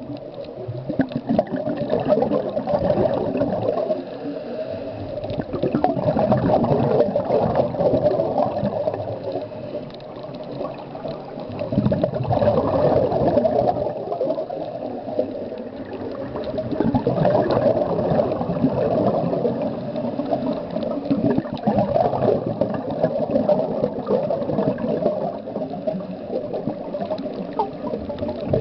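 Scuba diver's exhaled bubbles rushing and crackling past an underwater camera, swelling and fading about every five seconds with each breath through the regulator.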